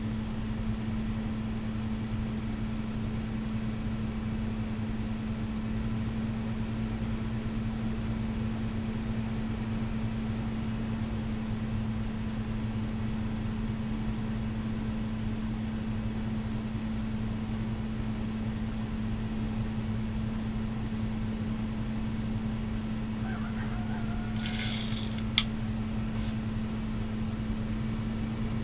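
Steady low electric hum of workshop machinery, unchanging throughout, with a short clatter and one sharp click near the end.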